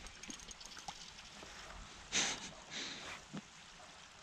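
Two short splashes from a small hooked trout thrashing at the surface as it is reeled in and lifted out of the water, followed by a light knock.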